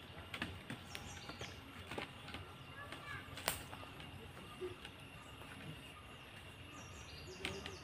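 Scattered light knocks and clicks of wooden poles being handled and fitted into a stick-built camp chair frame, the sharpest click about three and a half seconds in. Short high bird chirps come twice, near the start and near the end.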